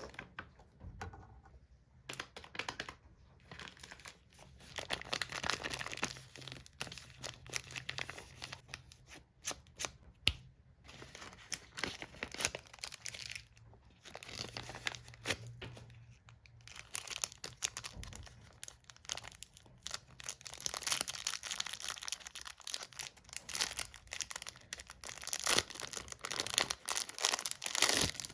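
Packaging being torn open and crinkled by hand, a continuous crackle of rustling and sharp little snaps that swells louder in several stretches.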